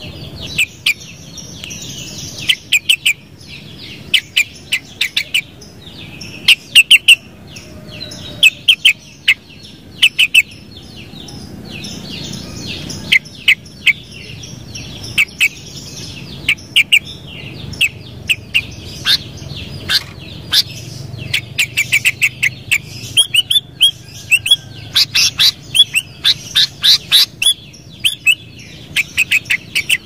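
Sooty-headed bulbul (kutilang) calling: many short, sharp chirps in quick runs and clusters, some of them very loud.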